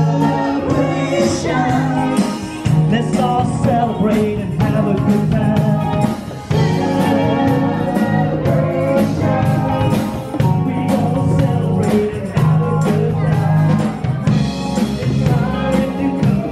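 Live band playing an upbeat song through the PA, with a singer over drum kit and guitar.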